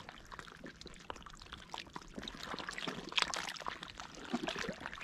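Shallow water lapping and trickling at the shoreline close to the microphone, with many small irregular splashes.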